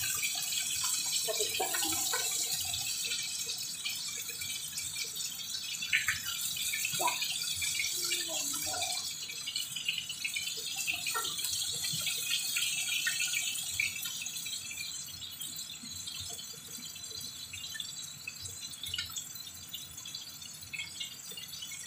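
Chicken pieces sizzling in oil in a frying pan, with a few clicks of metal tongs against the pan as the pieces are turned. The sizzle grows quieter in the second half.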